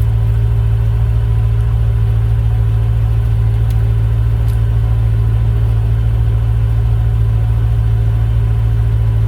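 BMW E9X M3's 4.0-litre S65 V8 engine idling steadily.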